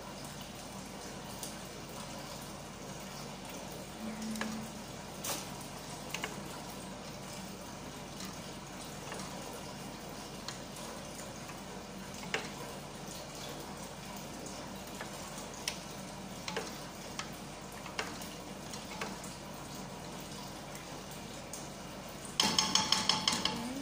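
Wooden spoon stirring tomato paste into a pot of simmering shrimp stew, with scattered light knocks against the aluminium pot over a steady low hiss. Near the end comes a quick run of sharp, ringing taps on the pot.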